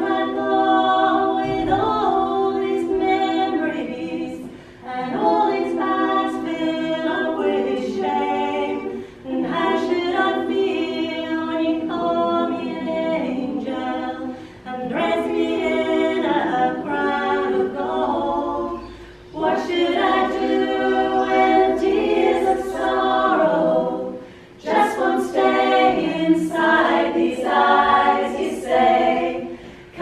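Small women's choir singing a cappella in harmony, in sung phrases of about four to five seconds with brief breaths between them.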